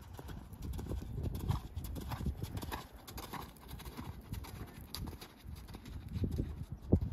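Horse's hooves beating on a sand arena surface at a canter, a continuous run of dull thuds, with one louder thud just before the end.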